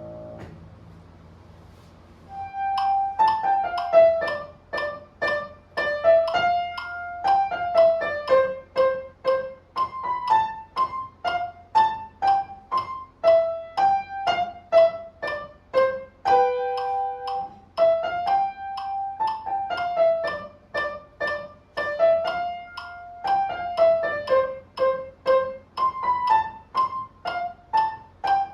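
Piano playing a simple melody over an accompaniment, starting about two seconds in, in a steady even rhythm of struck notes.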